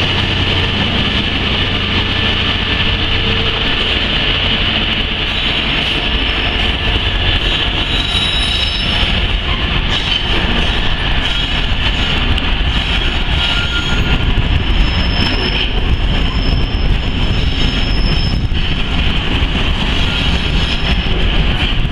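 Cement tank wagons of a freight train rolling past: a steady rumble and hiss of steel wheels on rail, with brief high-pitched wheel squeals, most of them in the second half.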